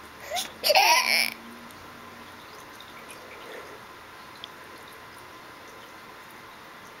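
Baby's short high-pitched squeal with a sliding pitch, about a second long, shortly after the start.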